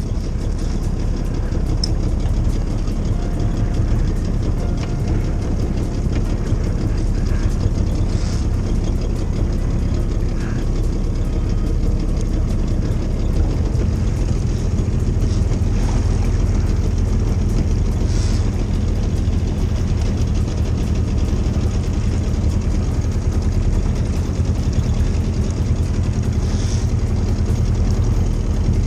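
Small outboard motor running steadily at low trolling speed, pushing a rowboat along.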